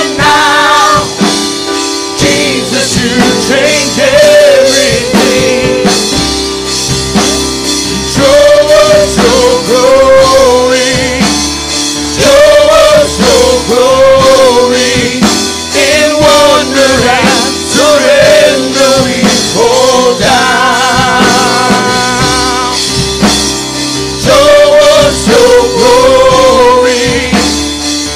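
Live gospel worship song: singers on microphones with vibrato-laden melody over sustained keyboard chords and a drum kit.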